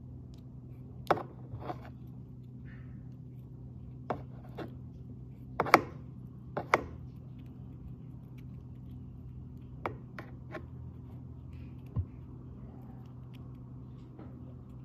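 Scattered small clicks and taps from hands handling small objects at close range, about a dozen at irregular intervals, the loudest cluster near the middle, over a steady low hum.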